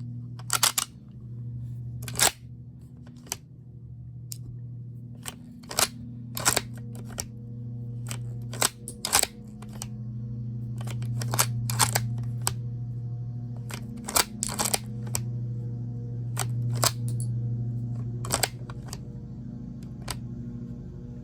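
Irregular metallic clicks and clacks of an airsoft FN Herstal Mauser bolt-action replica being handled and loaded from a stripper clip, some in quick pairs, over a steady low hum.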